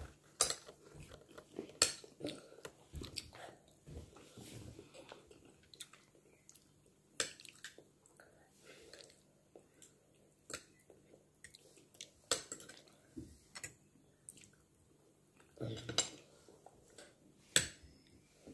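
Metal spoon and fork clinking and scraping on a ceramic plate in scattered short clicks, with chewing between.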